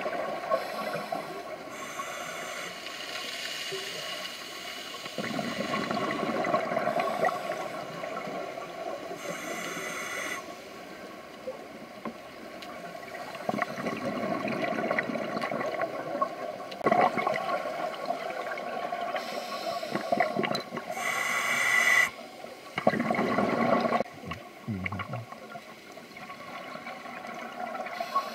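Scuba diver breathing through a regulator underwater: hissing inhalations and bubbling, gurgling exhalations at intervals over a steady watery background.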